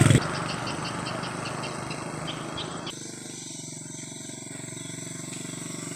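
A small motorcycle engine fading away after passing by. A little before halfway the sound drops suddenly to a faint engine hum from a motorcycle approaching from far off, which grows louder toward the end.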